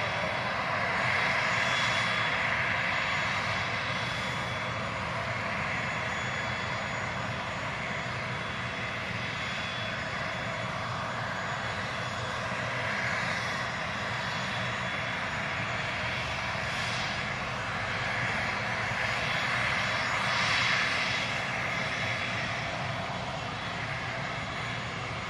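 Parked Airbus A320neo's auxiliary power unit running steadily: a constant rushing turbine whine with a few faint high-pitched tones, swelling slightly near the end.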